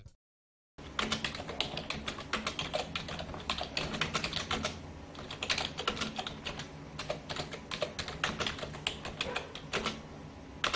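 Computer keyboard typing sound effect: rapid, irregular key clicks starting about a second in.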